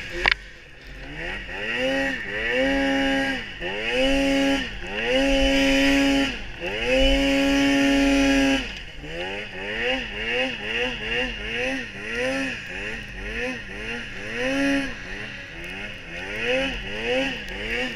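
Polaris Pro RMK 800 snowmobile's two-stroke 800 cc engine revving again and again while ploughing through deep powder snow, with the nose buried at first. Halfway through it is held at high revs for a few seconds, then blipped in quick short revs. A single sharp knock sounds just at the start.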